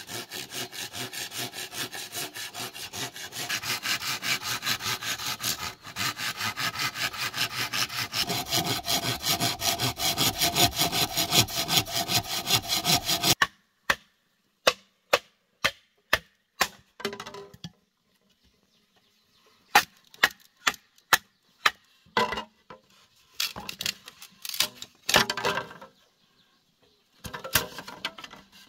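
Hand saw cutting through a thick green bamboo pole with fast, even back-and-forth strokes that stop abruptly about halfway through. Then sharp, separate knocks of a wooden stick striking the back of a knife blade set on an upright bamboo post, driving it down to split the bamboo.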